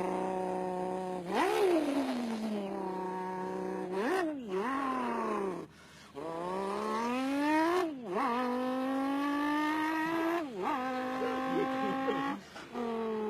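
A man imitating a revving sports-car engine with his voice. Held buzzing notes climb in pitch as if accelerating through the gears and drop sharply at each shift, with two brief breaks for breath.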